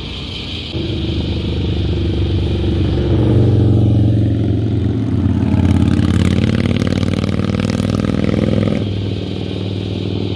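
Cruiser motorcycle riding past close by. Its engine note builds, is loudest through the middle as the bike goes by, then drops away near the end.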